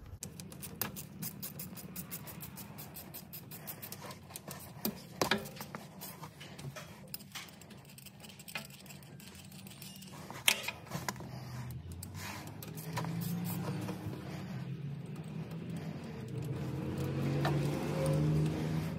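Hand tools working on the oil filter housing bolts of a TGB 1000 engine: a run of quick ratchet clicks near the start, then scattered metal clinks and knocks. A low droning hum builds up over the last several seconds.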